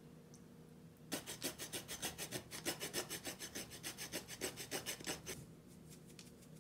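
A block of Grana Padano cheese rubbed by hand across a small handheld grater: quick rasping strokes, several a second, starting about a second in and stopping after about four seconds, followed by a few faint ticks.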